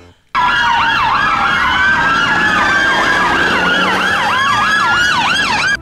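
Several British police car sirens sounding at once, fast yelp sweeps overlapping slower rising and falling wails. They cut in suddenly just after the start and stop abruptly at the end.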